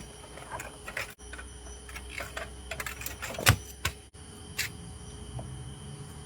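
Scattered knocks, clicks and scrapes of a person climbing over a locked gate, with a low rumble in the middle of the climb.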